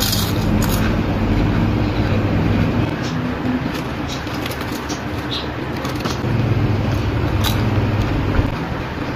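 Crunching of Lay's potato chips being bitten and chewed, with crackles of the foil snack packet as a hand reaches into it, over a steady low hum.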